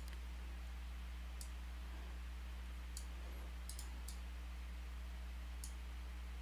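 A few sharp computer mouse clicks, some in quick pairs, spaced irregularly over a steady low electrical hum.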